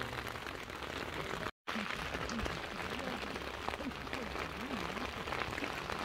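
Rain falling on a tent, heard from inside it: a steady hiss with many small drop ticks. The sound cuts out for a moment about a second and a half in.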